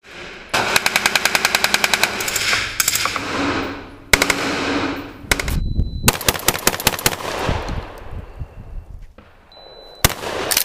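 Gunfire: two long strings of rapid shots at about ten a second, with several single shots between them.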